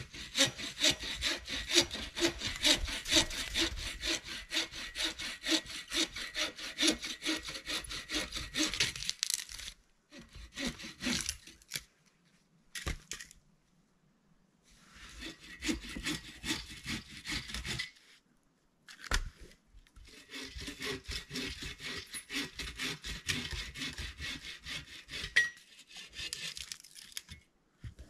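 A hand saw cutting through wood in quick, even strokes, in several runs with short pauses between them.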